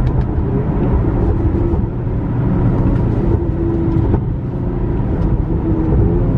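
Honda Accord engine and exhaust heard from inside the cabin while driving, over a steady low road rumble. A few faint sharp pops come from its pops-and-burbles tune as the car decelerates.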